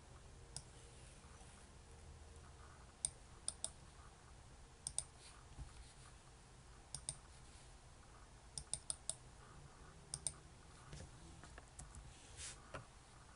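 Scattered sharp clicks of a computer mouse and keyboard keys, some single and some in quick runs of two to four, over a faint steady room hum.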